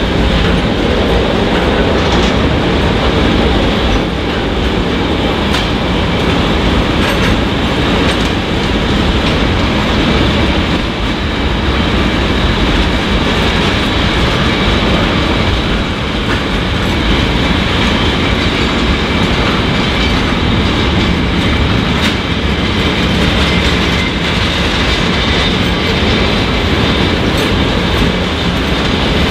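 Container freight wagons rolling past at close range: a steady, loud rumble of steel wheels on rail, with clickety-clack as the wheels cross the rail joints.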